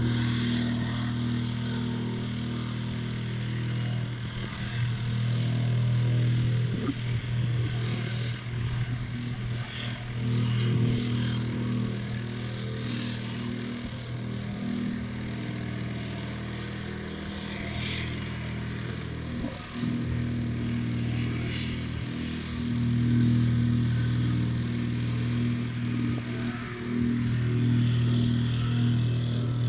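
Small petrol engine of a vibrating plate compactor running steadily as the plate works over gravel, its level swelling and falling every few seconds.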